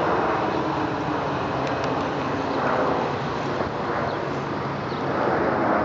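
McDonnell Douglas MD-81's two rear-mounted Pratt & Whitney JT8D turbofans at climb thrust during a go-around, overhead: a steady, loud jet rumble and hiss that wavers slowly.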